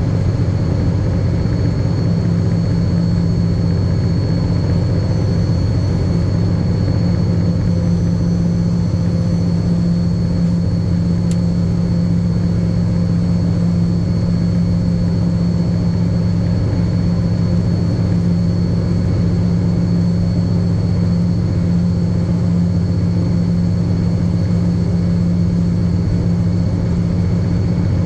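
Diesel-electric banking locomotive's engine running steadily with a deep, even drone, with a thin steady high whine over it.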